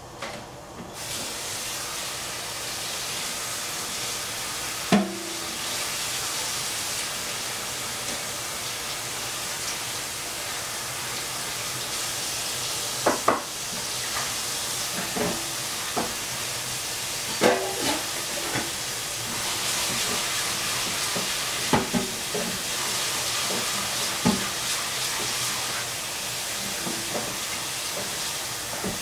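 A steady hiss that starts and stops abruptly, with about ten short clinks and knocks of kitchenware scattered through it.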